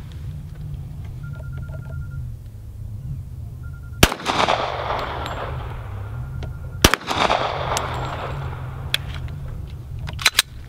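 Two .45 ACP pistol shots about three seconds apart, each followed by a long echoing tail that dies away.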